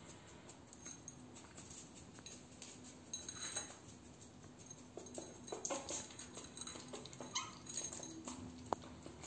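Young puppy whimpering faintly in short, scattered high squeaks, with a few light clicks and taps.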